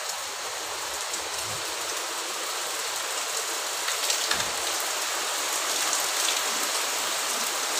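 Rain falling steadily: an even hiss with a few faint drip ticks.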